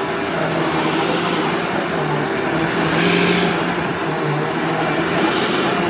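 Vacuum cleaner running steadily over a rug, its motor hum dipping briefly in pitch twice, with a short burst of brighter airflow hiss near the middle.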